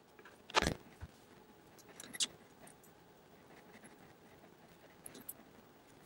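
Small flush cutters snipping the untwisted wire ends of an Ethernet cable: one sharp snip about half a second in, then a few light clicks and ticks as the cutters and wires are handled.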